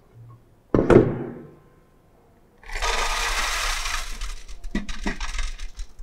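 Stainless steel test sieves and pans being handled: one ringing metal clank about a second in, then about three seconds of metallic scraping and rattling.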